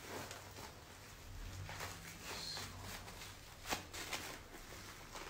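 Faint rustling and soft taps of a cling-film-wrapped bamboo sushi mat being rolled and pressed by hand around a sushi roll, with one sharper click about three and a half seconds in.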